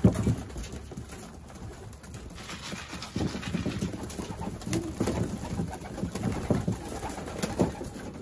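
Racing pigeons cooing in a small loft, with short pecks and shuffling at a wooden feeder. A sharp knock right at the start is the loudest sound.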